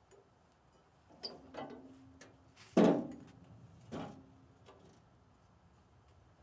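A few separate metal clanks and knocks from working the log on a portable sawmill with its engine off. The loudest comes about three seconds in, and a short metallic ring hangs after a knock a little over a second in and after another at about four seconds.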